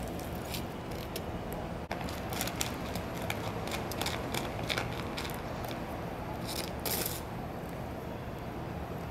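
Scattered light clicks and taps of chopsticks against plastic food trays as wet cat food is dished out, several a second at first, with a louder cluster near the end, over a steady low background hum.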